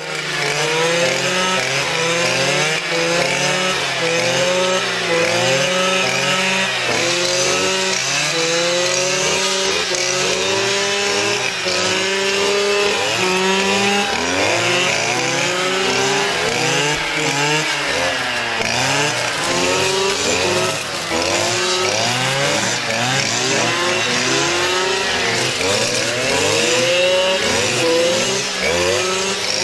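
Two-stroke brush cutters (string trimmers) running, their engines revving up and down over and over as they cut through weeds and brush, with more than one machine going at once.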